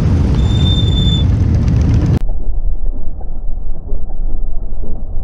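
A line of motorcycles, among them Harley-Davidson touring bikes, riding past close by, their engines running loud and low. A brief high steady tone sounds for about a second near the start. About two seconds in, the sound turns abruptly muffled, leaving a low rumble.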